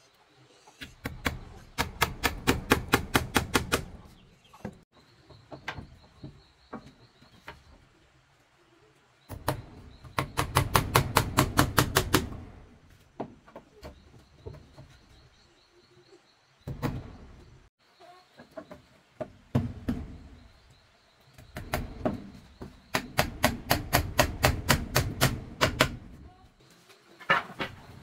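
Rapid runs of sharp knocking strokes from hand-tool work, about six to seven a second, in three bursts of three to four seconds and a shorter one near the end.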